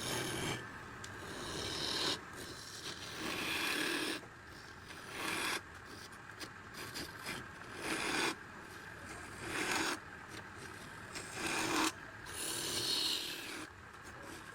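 A hand tool scraping wood in repeated rasping strokes, about one stroke every two seconds.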